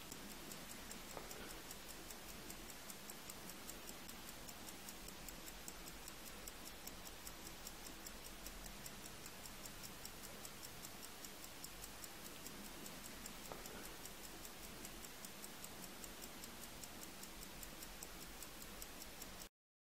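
Mechanical watch movement ticking: the escapement beats in a rapid, even rhythm, faintly.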